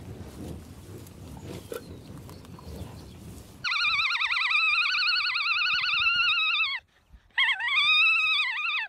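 Alpaca giving two loud, high-pitched, wavering calls. The first lasts about three seconds and the second about a second and a half. Before them come a few seconds of low, rough caribou sounds.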